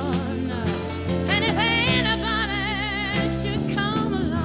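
A soul song with a band and a singer; from about a second and a half in, the singer holds long notes with a strong vibrato.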